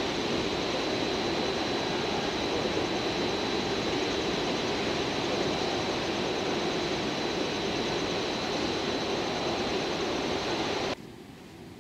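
JR Freight EF510 electric locomotive running slowly through the yard: a steady rumble and hiss with a thin, high, steady whine over it. It cuts off suddenly near the end.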